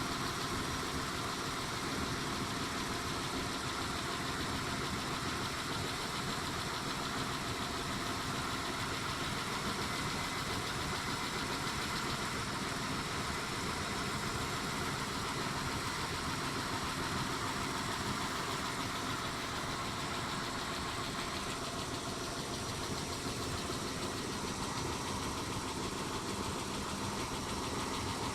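Mitsubishi 6G72 V6 engine idling steadily with a ticking from the valvetrain, which the owner takes for tapping hydraulic lifters, though he wonders whether it is general engine wear.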